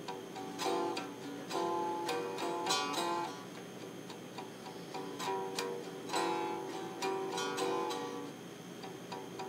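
Slide playing on a homemade box guitar with a plain wooden board neck: a slow run of single plucked notes and short phrases, each ringing briefly before the next.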